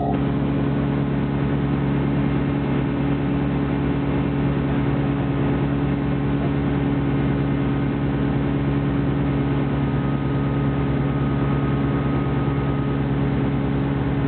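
Single propeller engine of a light high-wing aircraft droning steadily at constant pitch in cruise flight, heard from inside the cockpit.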